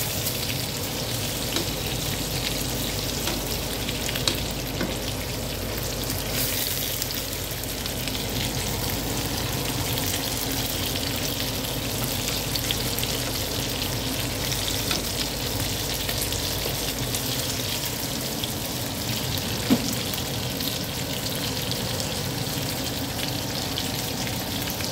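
Pork pieces frying in oil with sesame seeds in a nonstick pan: a steady crackling sizzle. A single sharp click stands out a little before the end.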